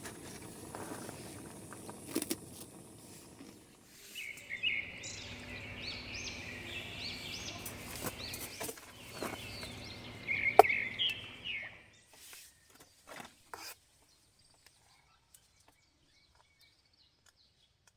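Birds chirping in a run of quick gliding notes over a steady outdoor background hiss, with a sharp knock near the middle; the chirping stops about two-thirds of the way through, leaving only a few faint clicks.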